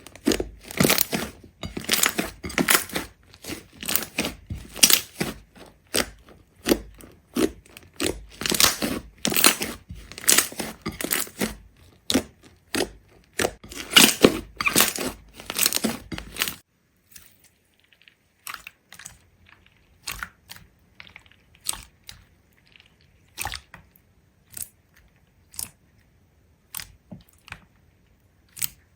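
Crunching, a dense run of loud crunches for about the first two-thirds, then an abrupt change to sparse, quieter clicks and crackles.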